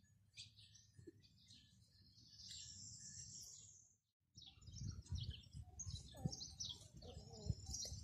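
Small birds chirping and twittering faintly, with a longer high trill just before the middle. The sound drops out for a moment halfway, then the chirps carry on over a low rumbling noise, with a couple of short higher calls near the end.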